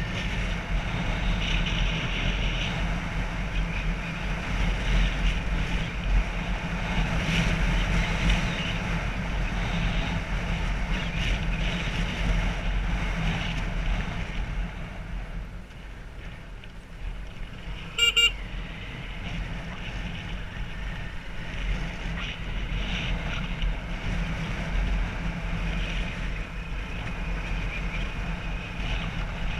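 Motorbike engine running and wind rushing over the microphone while riding a dirt track, with one short horn beep a little past halfway.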